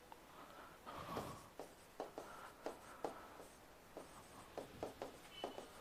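Faint short strokes and taps of a pen writing on an interactive touchscreen board, coming every half second or so, with a brief high squeak near the end.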